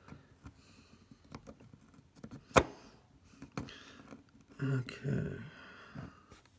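Small clicks and taps of circlip pliers being worked onto a circlip, with one sharp click, the loudest sound, about two and a half seconds in.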